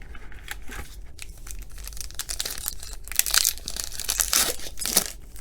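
Crinkling and tearing of a foil trading-card pack wrapper as it is torn open by hand, in a run of crackly rustles that gets busier and louder in the second half.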